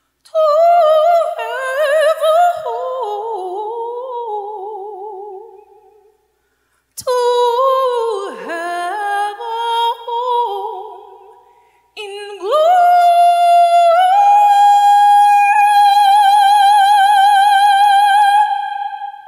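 A solo female voice singing a spiritual unaccompanied, in an operatic style with wide vibrato. Three phrases with short pauses between them, the last a long high note held with vibrato that closes the song.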